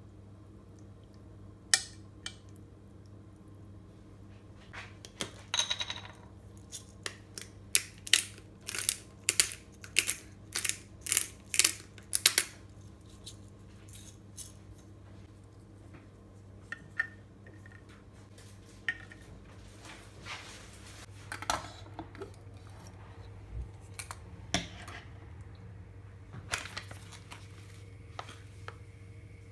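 A knife clinks against a glass plate as a boiled egg is cut, then comes a run of quick, sharp crunching clicks from a hand pepper grinder over several seconds. Scattered knocks of things set down follow, and near the end a coffee bag rustles, all over a steady low hum.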